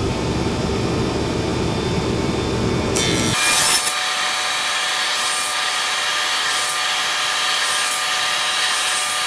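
Table saw with a dado blade running, cutting into a turned wooden hollow form to notch out its legs. About three seconds in the low rumble drops away, leaving a steadier, higher whine.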